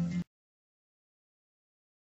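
Digital silence: the last of the radio broadcast's audio cuts off abruptly about a quarter second in, and nothing follows.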